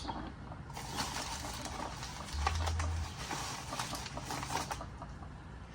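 Crinkling of packaging and quick small clicks and taps as miniature fingerboard-park slabs are unwrapped and handled, with a brief low bump about halfway through.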